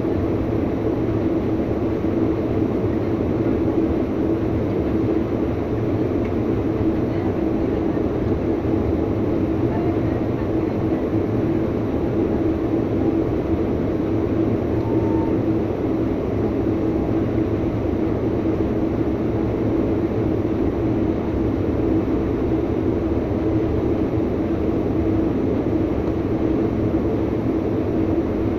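Metrolink commuter train running at speed, heard from inside a passenger car: a steady rumble with a constant low hum running through it.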